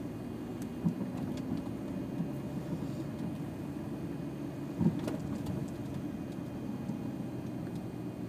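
Car driving slowly: steady low engine and road noise, with two short knocks, a light one about a second in and a louder one near five seconds.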